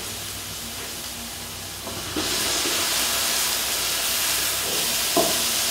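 Chopped onion sizzling in hot oil in a pot; about two seconds in, diced tomato goes in and the sizzle jumps louder and hissier as the wet tomato hits the hot oil, with a light knock at that moment and another near the end.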